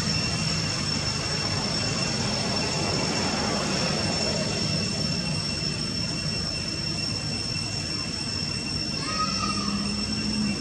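Steady background noise: a low rumble with two constant high-pitched tones over it, and a short higher sound about nine seconds in.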